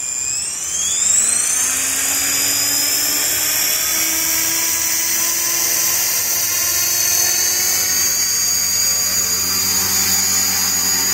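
Hausler SE V2 electric RC helicopter spooling up: the motor's high whine rises in pitch over the first couple of seconds, then holds steady under the rotor's hum as the rotor reaches speed and the helicopter starts to lift off near the end.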